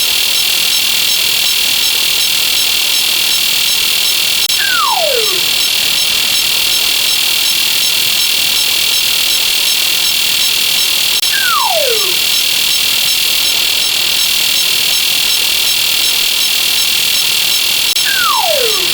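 Slide whistle sound effect sliding down in pitch, three times, about seven seconds apart, over a steady high-pitched hiss.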